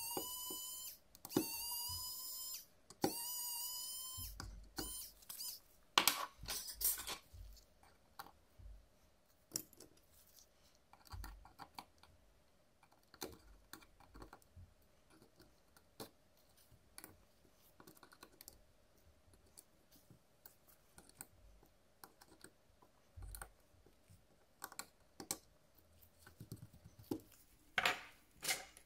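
Small hand tools clicking and tapping on a smartphone as it is taken apart, in many irregular light clicks. Three short whining tones, each about a second long, come in the first four seconds.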